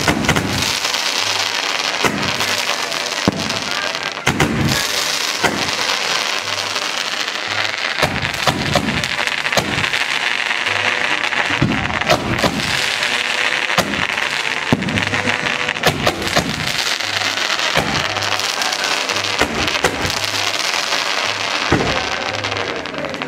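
Fireworks from a castillo (festival fireworks tower) burning: a steady fizzing hiss of spark fountains and rockets, broken by frequent sharp bangs.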